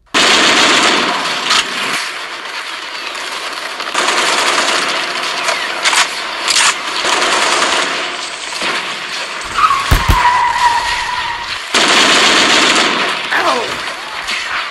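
Dubbed firefight sound effects: sustained rapid automatic gunfire with sharp individual shots, and a heavy low boom about ten seconds in followed by a brief whine.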